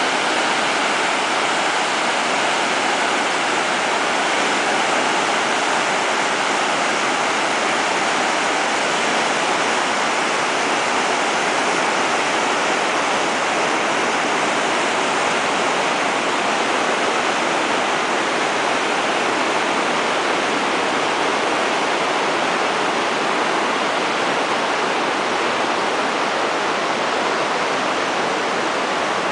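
Steady rush of a river in spring flood, whitewater rapids churning over and around boulders.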